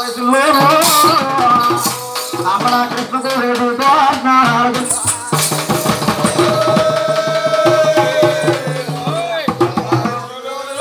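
Loud festival music: drums and rattling percussion keep a steady beat under a wavering melody line that holds one long note about midway.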